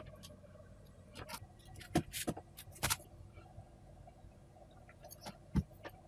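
A handful of light clicks and scrapes from tweezers and the metal chassis being handled on a bench power supply's circuit board. The loudest clicks come about two seconds in and near the end.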